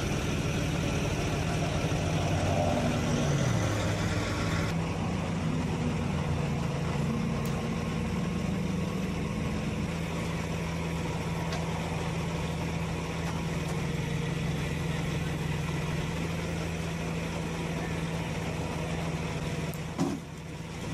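Heavy tow truck's engine running steadily under load as its winches pull an overturned cement mixer upright, the engine note shifting a little in the first half and then holding even. A short knock comes near the end.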